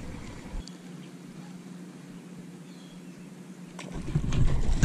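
Quiet outdoor background with a baitcasting reel being wound in steadily; the noise grows louder near the end.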